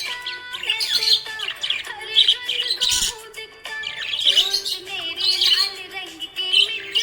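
Budgie chirping and warbling in quick, high chirps, several every second, over background music with steady held tones.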